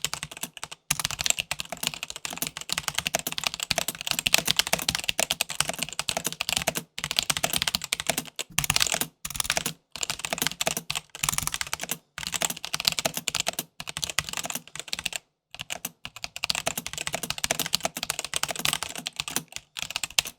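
Fast typing on a mechanical keyboard: a rapid, continuous clatter of key presses broken by a few brief pauses.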